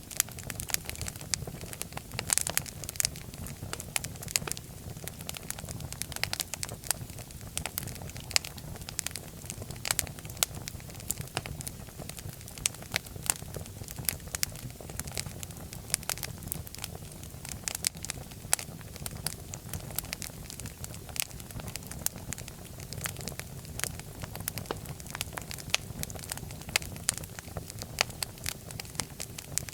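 Fire in a fireplace crackling: dense, irregular pops and snaps over a steady low rumble of the flames.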